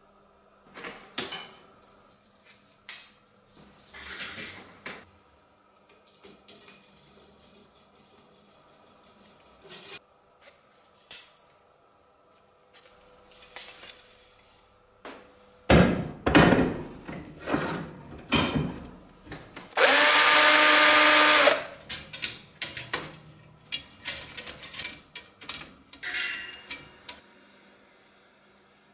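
Steel spokes, hub and rim clinking and rattling as a bicycle wheel is laced by hand. A little past the middle, a small power tool runs steadily for about a second and a half.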